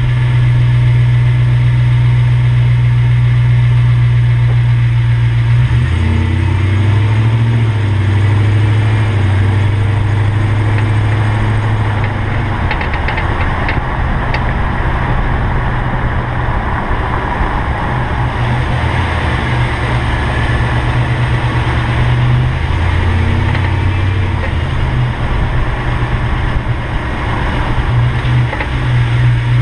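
2005 Toyota Tundra pickup running, with a steady low engine and road hum and a few sharp clicks from under the front end roughly 12 to 15 seconds in. The owner suspects an inner tie rod; ball joints have been checked and found fine.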